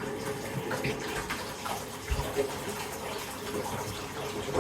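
Bath tap running into a bathtub: a steady rush and splash of water.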